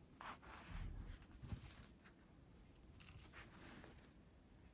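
A few short, faint rustles and scratches of needle and thread being drawn through bead-embroidery canvas.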